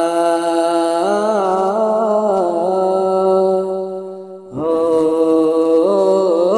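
Unaccompanied male voice singing long, wordless held notes with slow pitch bends: a melismatic interlude of a Bengali Islamic gojol. The voice breaks off briefly about four and a half seconds in and starts a new held phrase.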